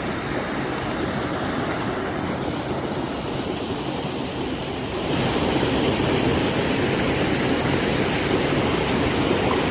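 Small waterfall splashing and rushing steadily, growing louder about halfway through.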